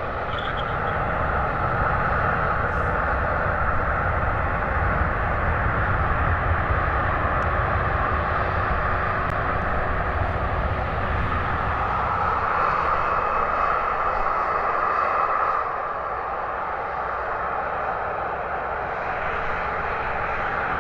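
Air New Zealand Boeing 787-9's Rolls-Royce Trent 1000 jet engines running steadily as the airliner comes in to land, with a deep rumble under a strong hum. The rumble thins out past halfway, and the sound drops a little about three-quarters of the way through.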